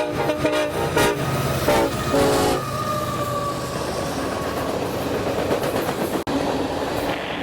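Union Pacific SD70ACe locomotive horn played 'elephant style': a string of short, wavering blasts, the lever feathered so the chime trumpets like an elephant. After about two and a half seconds the horn stops, and the train's steady running noise carries on.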